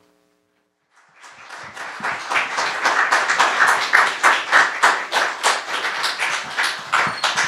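Audience applauding. The clapping sets in about a second in, builds quickly to full strength, then begins to thin out near the end.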